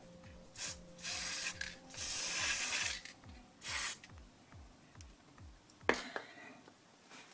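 Aerosol lithium grease sprayed in about five short hissing bursts, the longest nearly a second, followed by a single sharp click near the end.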